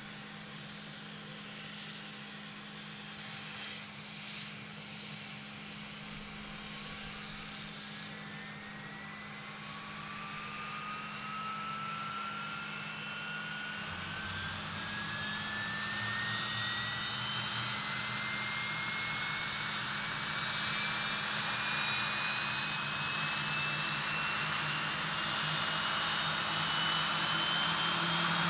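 Nimrod's Rolls-Royce Spey turbofan spooling up: a whine that climbs slowly and steadily in pitch and grows louder from about a third of the way in. A steady low hum runs underneath.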